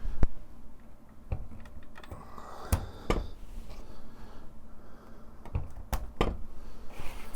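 Parts of a Corvette digital instrument cluster being handled and fitted by hand during reassembly: several sharp, scattered clicks and knocks.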